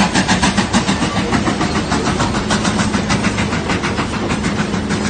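Train running, with a fast, even beat of about six strokes a second, growing a little fainter toward the end.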